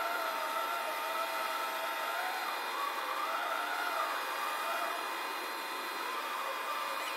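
A mobile bridge girder erecting machine running as it moves forward carrying a box girder: a steady mechanical whining drone whose pitch wavers slowly up and down.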